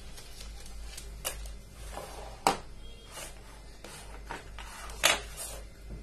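Hands handling loose electrical wires and a small plastic rotary switch on a tabletop: light rustling and tapping, with two sharp clicks about two and a half and five seconds in.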